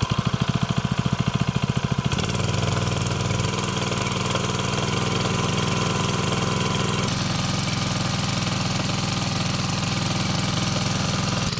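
Petrol fire pump's GX-220 type 8 hp single-cylinder four-stroke engine running, pulsing unevenly for about two seconds, then settling into a steady, faster run. A steady hiss joins about seven seconds in.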